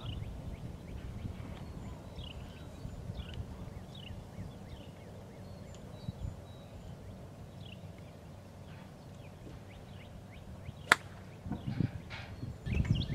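Golf iron striking the ball in a full approach swing: a single sharp click about eleven seconds in.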